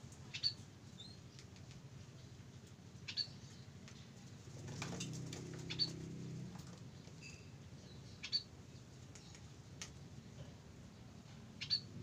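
Caged munias giving short, sharp, high-pitched single calls, five times, about every three seconds.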